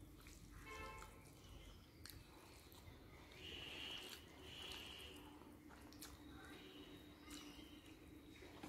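Faint wet squishing and small clicks of fingers mixing rice with fish curry on a plate, with soft chewing sounds.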